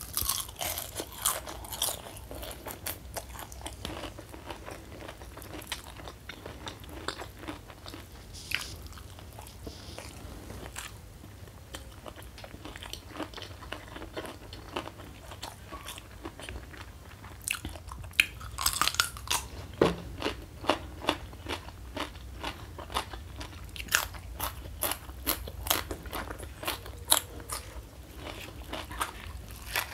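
Close-miked chewing of a mouthful of crispy battered fried mushroom: sharp crunches and bites come in clusters near the start, again about two-thirds through and near the end, with softer chewing between.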